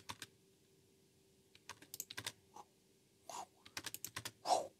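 Computer keyboard keys and mouse clicking in short scattered runs, with a pause after the first few clicks and a slightly louder short sound near the end.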